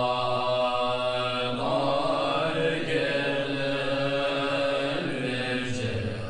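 A mantra chanted in long, held notes over a steady low drone, the pitch shifting every few seconds.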